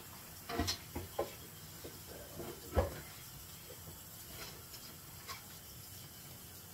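Kitchen handling sounds: a few light knocks and taps as things are picked up and set down on a counter, the loudest about three seconds in.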